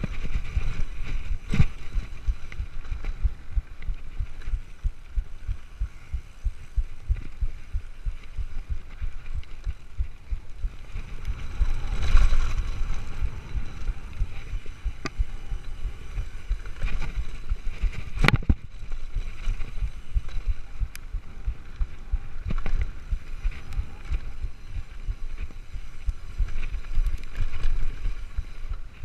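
Mountain bike riding fast down a gravel and rock trail, heard from a camera mounted on the bike or rider: a constant rattle of low thumps as the tyres and frame jolt over the stones, with wind on the microphone. It grows louder for a few seconds around twelve seconds in, and a sharp knock stands out about eighteen seconds in.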